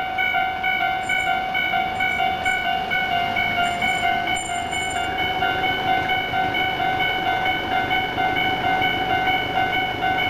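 Japanese railway level-crossing electronic warning bell ringing steadily, about two dings a second: the crossing's old-type alarm sound. Underneath it runs the rumble of an 8000-series electric train, growing near the end.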